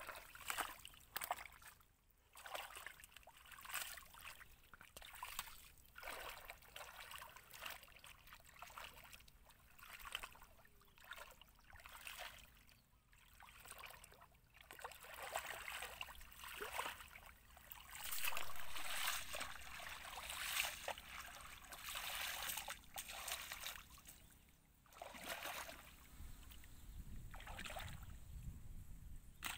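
Hands sweeping and splashing through shallow muddy water, groping in the mud for fish: irregular sloshes and swishes, with wading steps through the water near the end.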